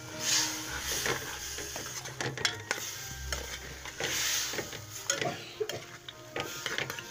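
Metal spatula stirring and tossing sliced potatoes in masala in a metal wok, scraping and clinking against the pan, with sizzling that swells twice, near the start and about four seconds in.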